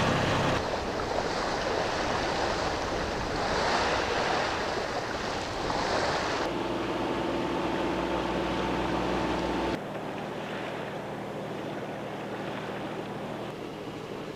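Sea water rushing past a sailboat's hull with wind noise on the microphone, in several abruptly cut-together takes. A steady hum is heard for a few seconds in the middle, and the sound drops quieter about ten seconds in.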